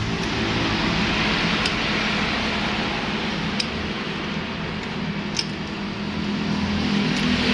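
Yamaha F1ZR two-stroke motorcycle running on the road: a steady rushing noise with the engine's hum underneath and a few faint sharp ticks.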